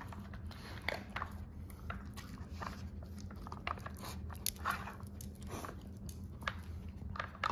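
Basenji chewing dry kibble: irregular crunches and clicks several times a second, while its nose and tongue work the plastic layers of a puzzle feeder.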